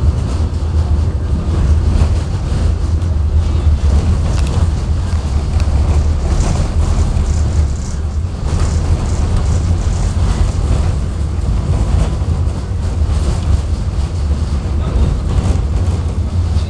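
KTM-19 tram running between stops, heard from inside the car: a steady low rumble of the wheels on the rails and the running gear, with a few light knocks scattered through it.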